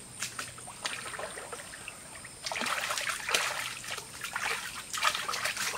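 Hands scooping and splashing water in a shallow muddy stream: a run of short splashes and trickles, busiest about halfway through and again near the end.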